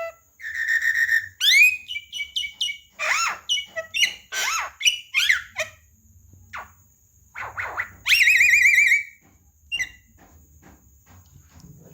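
Javan myna calling: a quick, varied run of clear whistles, sharp up-and-down sweeps and short harsh notes, then a long trilled warble about eight seconds in, after which it falls mostly quiet.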